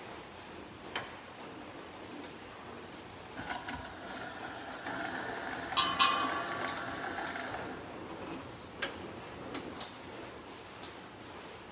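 12V boat anchor winch motor running for about four seconds with a pitched whine, with two loud clunks near the middle and a few separate sharp clicks before and after.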